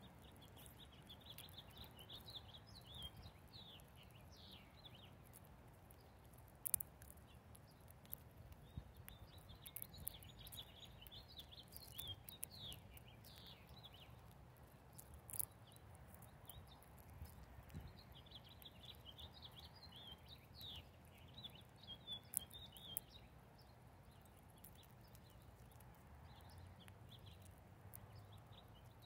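Faint small-bird chirping in three flurries of quick high chirps, with scattered sharp taps and clicks between them.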